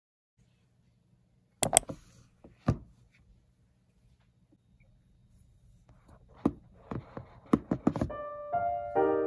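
Packaging being handled during an iPhone unboxing: a few sharp clicks and knocks about two seconds in, then a quick run of them later on. Soft piano music comes in near the end.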